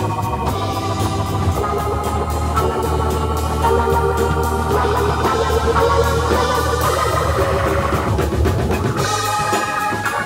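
Funk jam music: organ chords held and changing over a steady bass line, with a drum kit keeping an even beat.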